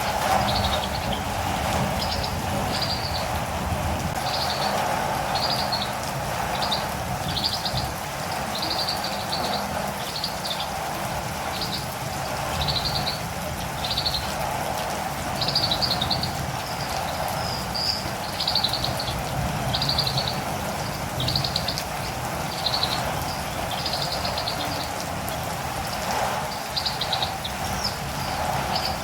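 Steady rain with a catirumbava (olive-green tanager) calling over it: short, high trilled calls repeated about once a second.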